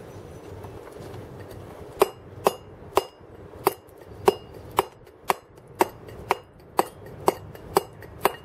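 Round wooden carver's mallet striking a steel chisel into a block of stone: about two sharp knocks a second, starting about two seconds in, each with a short metallic ring from the chisel.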